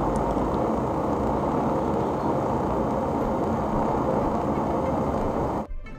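Steady rumbling noise that cuts off suddenly near the end, giving way to plucked-string music.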